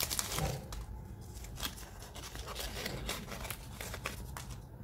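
Foil wrapper of a KitKat bar crinkling and crackling as it is peeled open by hand: an irregular run of sharp crackles that stops near the end.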